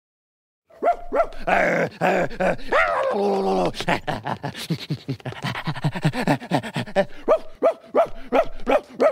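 A puppet character's voice imitating a dog, a quick run of short barks and yips starting about a second in.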